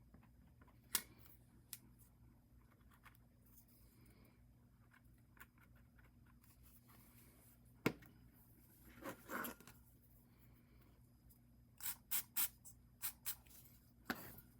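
Quiet, scattered clicks and taps of small hard parts being handled, with a short scraping rub about nine seconds in and a quick run of clicks near the end.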